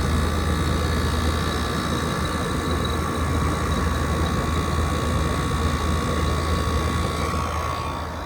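2012 Frigidaire 18,500 BTU window/wall air conditioner running with compressor and fan on: a steady low hum and a steady higher whine over the rush of fan air. It gets slightly quieter near the end.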